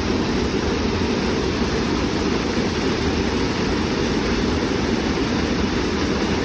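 Waterfall: a steady, deep rush of falling water, even throughout.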